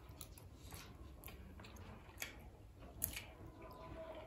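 Faint chewing and eating sounds of two people eating rice with spoons and forks, with scattered soft clicks; the sharpest comes about three seconds in.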